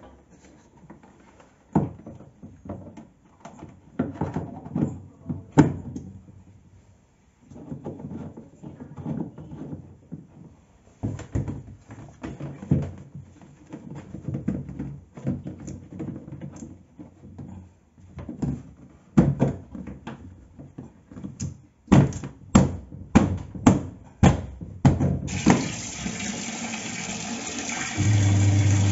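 Scattered knocks and clunks of handling on a Sharp washing machine, then near the end water starts gushing steadily into it and, just before the end, its motor starts with a steady low hum, as the machine is run to test its repaired weak spin.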